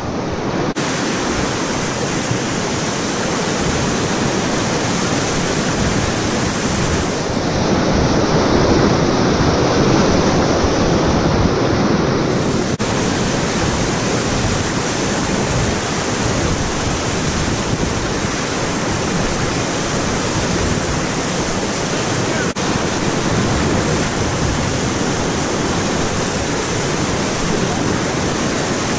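Whitewater rapids rushing steadily around a packraft as it runs down through them, a little louder about eight to twelve seconds in.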